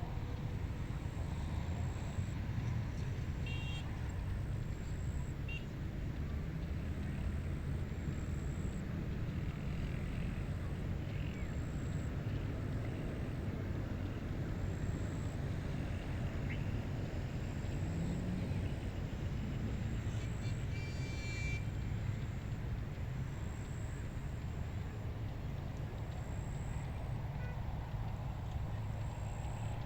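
Steady low wind rumble across a rice paddy, unchanging throughout, with a few faint high chirps, one a few seconds in and another about two-thirds of the way through.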